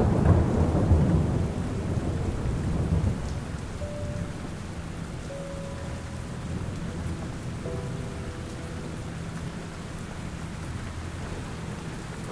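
Steady rain with a low roll of thunder that rumbles through the first few seconds and dies away.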